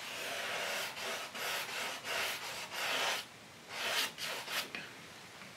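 Oil-paint brush rubbing paint onto canvas in a run of short strokes, each under a second long, which stop about a second before the end.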